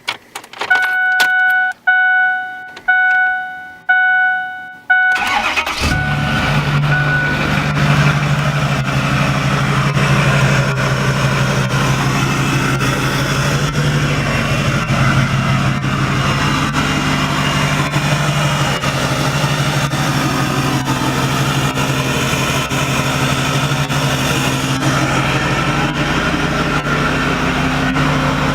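The truck's warning chime dings five times, about once a second. Then the 6.4 Powerstroke V8 turbo-diesel cranks and starts about five seconds in and settles into a steady idle, heard through a 5-inch dual exhaust with no muffler.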